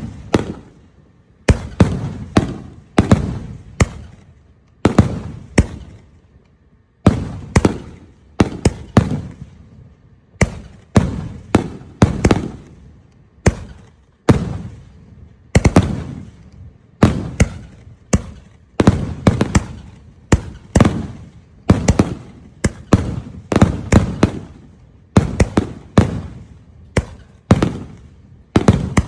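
A big-bore 36-shot, 500-gram consumer firework cake firing shell after shell. Sharp bangs, often in close pairs, come about once a second, each dying away quickly, with a few short pauses between volleys.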